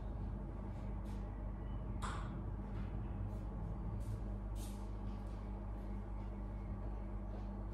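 Steady low hum with a few short clicks and ticks over it, the loudest about two seconds in.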